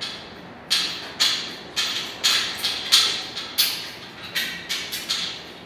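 A quick, uneven run of a dozen or so sharp knocks or taps, two to three a second, starting about a second in, likely from work on the sofa being assembled.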